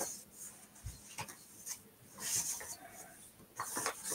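Paintbrush stroking wet paint across a paper journal page: faint, intermittent swishing and scratching strokes.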